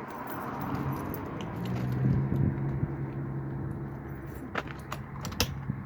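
Metal rattling and jiggling in the lock cylinder of a newly fitted double-cylinder deadbolt, with two sharp clicks near the end, as it is worked without its key; the deadbolt stays locked. A steady low hum runs underneath from about a second in.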